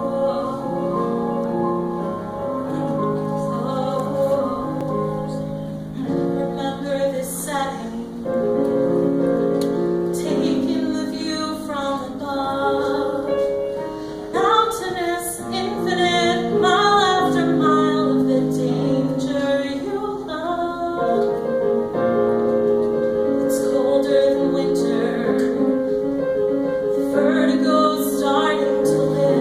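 Solo singer performing a musical theatre song over piano accompaniment, with held piano chords and the voice's sung lines wavering in vibrato.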